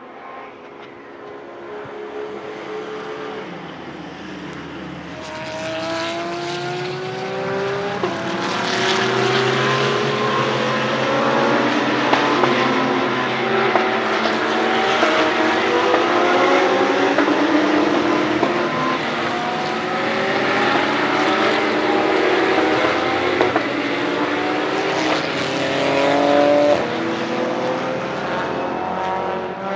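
Several race cars accelerating hard through the gears, their engines climbing in pitch and dropping back with each upshift, overlapping one another. The sound grows louder over the first several seconds and stays loud, with a few sharp cracks about twelve seconds in.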